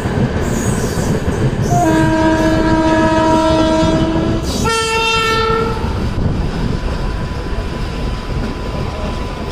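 Locomotive horn sounding two notes, a low blast of about three seconds followed by a shorter, higher one, over the steady rumble and clatter of a passenger train running on the rails.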